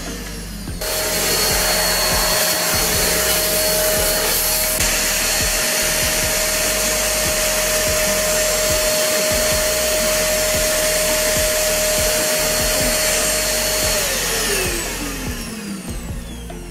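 Deerma DX700 handheld vacuum cleaner switched on about a second in, its motor running with a steady whine over the rush of suction. Near the end it is switched off and the whine falls in pitch as the motor spins down.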